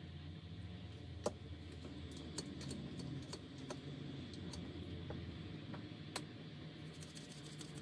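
Scattered light clicks and taps at uneven intervals, a dozen or so over a low hum, as a replacement iPad digitizer glass panel and a small blade are handled. The sharpest click comes about a second in.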